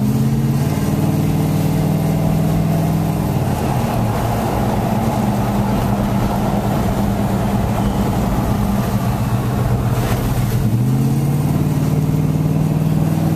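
Dodge Durango driving on a wet road, heard from inside the cabin: the engine note climbs in the first second, drops around four seconds in, holds steady, then climbs again about eleven seconds in, over a steady hiss of tyres on wet pavement.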